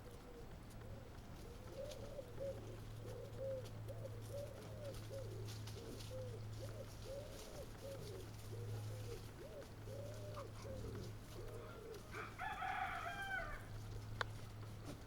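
An animal calling over and over in soft, short arched notes, about two a second, then giving a louder, higher call near the end, over a steady low hum.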